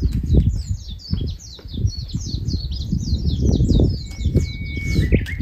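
A songbird singing a fast run of short, high, falling chirps, about five a second, then a single steady whistled note about four seconds in, over a low, uneven rumble.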